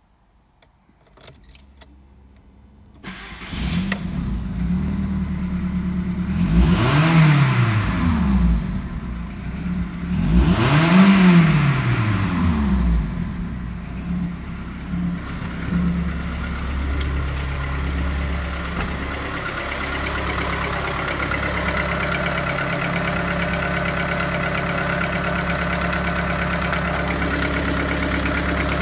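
VW Golf 4's 1.4-litre AKQ four-cylinder petrol engine starting from cold: it catches about three seconds in and is blipped twice, the revs rising and falling each time. It then settles into a steady idle at about 1000 rpm.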